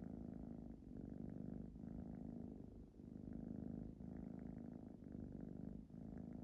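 Ragdoll cat purring, a continuous rough rumble that dips briefly about once a second as it switches between breathing in and out.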